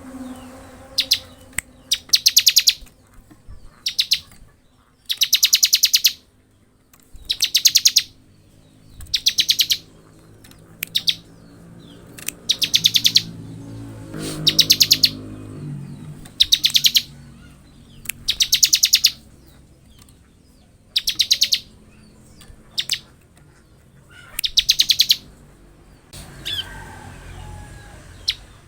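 Bar-winged prinia (ciblek) singing in its 'ngebren' style: high, very rapid trills delivered in bursts of about a second, repeated every one to two seconds.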